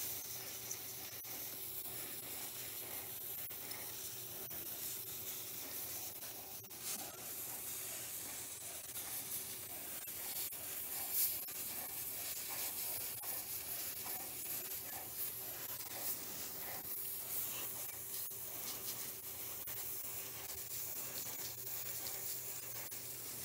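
CryoIQ PRO cryo pen with a D3 tip giving a steady hiss as it sprays pressurised refrigerant gas onto a skin mass to freeze it, with a few faint clicks along the way.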